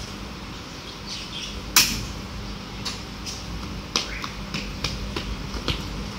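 Small children's footsteps slapping and tapping on a tiled floor, irregular and scattered, with one sharp smack about two seconds in.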